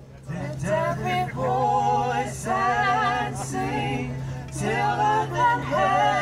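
A mixed group of men's and women's voices singing together in phrases, holding long notes, over a steady low hum.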